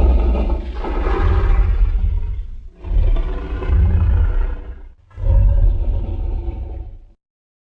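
Custom Godzilla roar sound effect: a loud, deep, rough roar in three long stretches of about two seconds each, with brief breaks between them, cutting off about seven seconds in.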